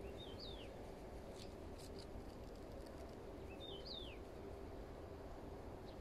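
A small songbird calls twice, about three and a half seconds apart: each call is a short high chirp that sweeps down in pitch. Under it runs faint steady outdoor background noise with a low hum.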